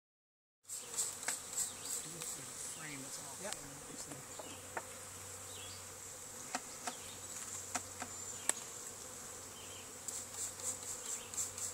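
Honeybee swarm buzzing steadily, with short hissing spurts of a hand spray bottle misting the cluster with sugar syrup, coming in quick runs near the start and again near the end, and a few sharp clicks in between.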